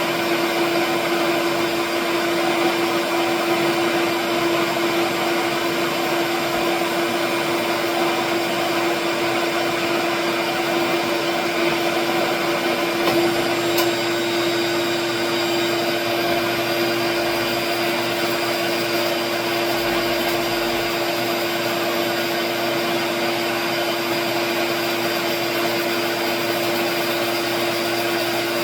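Shop vacuum running steadily with a wood lathe spinning a pen blank being sanded, a loud, even machine noise with a steady hum. A single sharp click comes about 14 seconds in.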